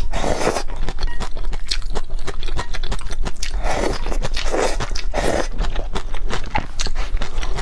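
Close-miked eating: noodle strands slurped from chopsticks, a slurp at the start and three quick slurps about four to five seconds in, with chewing and wet mouth clicks between.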